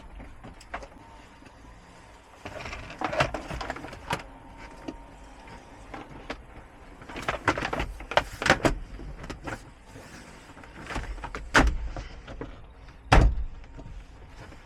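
Plastic dashboard trim panels on a 2015 SsangYong Rexton being handled and clipped back into place around the ignition: scattered clicks, rattles and knocks, with two sharp knocks near the end.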